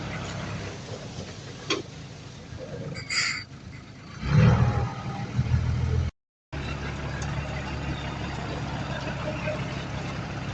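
Diesel engine of heavy earthmoving machinery running steadily, with a loud low surge about four seconds in and a brief cut-out around six seconds.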